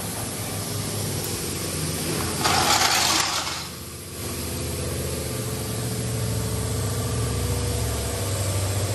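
A steady idling engine hum that grows louder over the last few seconds, with a burst of hiss lasting about a second, roughly two and a half seconds in.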